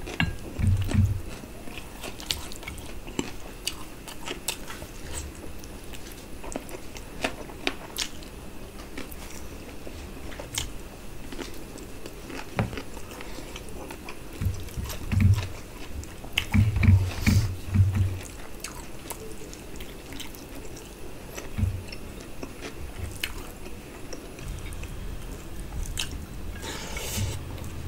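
Close-miked chewing and lip-smacking of mouthfuls of curry-soaked rice and mutton, with many small wet clicks. Several louder low thuds come about a second in and in a cluster about halfway through.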